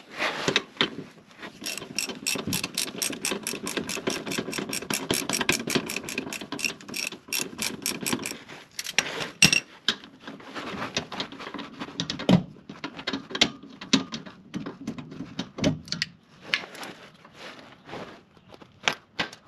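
Hand ratchet wrench clicking rapidly and steadily, about five clicks a second, as it backs off an exhaust nut on the car's underside, worked by hand in place of an impact wrench. After about eight seconds the clicking turns slower and irregular, with a few sharper metal clinks.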